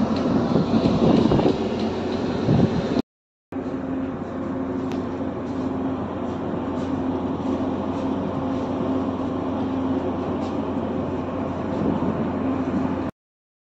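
Steady low drone of a car ferry's engines heard from the open deck, mixed with wind on the microphone and the wash of the sea. The wind is stronger in the first three seconds. The sound drops out for a moment about three seconds in.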